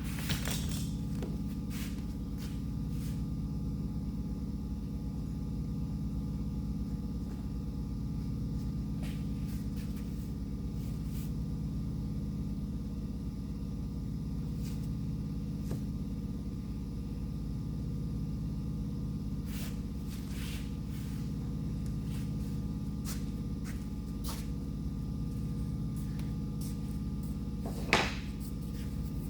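Steady low machine hum, with faint occasional clicks and one sharper knock near the end.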